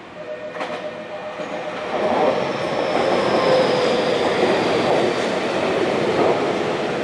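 Tokyu 6000-series seven-car electric train (set 6103F) approaching and running past, growing louder over the first two seconds and then holding steady. A steady hum and a thin high tone that slowly falls in pitch sit over the running noise.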